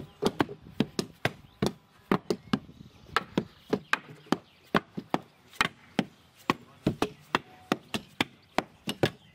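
Wooden hand rammers dropped by several workers onto moist earth in a timber formwork, compacting a layer of a rammed-earth wall. A steady run of thuds, two or three a second, in an uneven rhythm as the rammers fall out of step.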